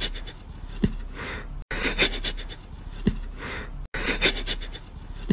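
A puppy breathing in short, noisy breaths, with a small click now and then. The same bit of sound repeats about every two seconds, each time after a brief gap.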